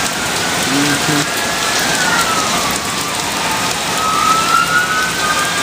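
Heavy rain pouring steadily. Over it, emergency-vehicle sirens wail faintly, their tones rising and falling and overlapping one another.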